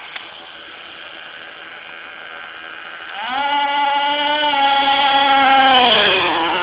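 Small two-stroke nitro glow engine of an RC car, driven together with its electric motor in parallel-hybrid mode. It hums faintly and steadily at first, then about three seconds in it revs up quickly to a loud, high, steady buzz, which drops in pitch and fades near the end as the car passes.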